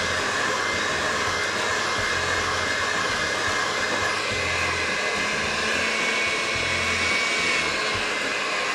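Handheld electric mixer running steadily in a bowl, beating gingerbread cookie dough as it comes together.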